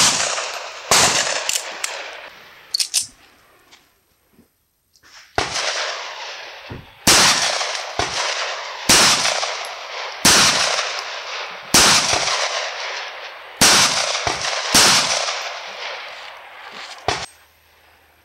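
Single shots from a 9mm 1911 pistol, about nine in all, each followed by a long echo off the surrounding hills. Two shots, then a pause of about four seconds, then a steady shot every second and a half or so, with a few fainter sharp knocks between.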